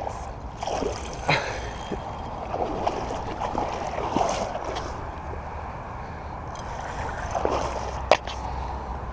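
Shallow seawater sloshing and trickling around the angler, with two sharp clicks, one about a second in and a louder one near the end.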